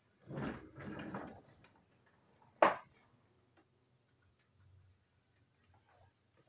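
Two short rustling scuffs, then a single sharp click about two and a half seconds in, the loudest sound, followed by a few faint ticks.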